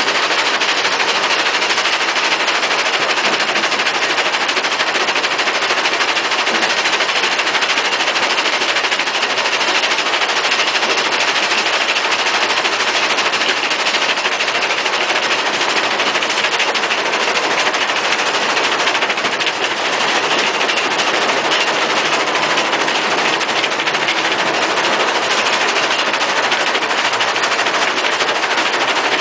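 Vibrating screening plant sorting crushed asphalt: chunks of asphalt rattling and clattering on the shaking steel wire-mesh screen deck in a loud, continuous, dense rattle.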